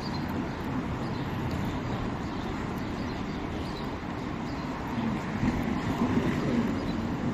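City street ambience: a steady low rumble of traffic, growing louder for a couple of seconds near the end.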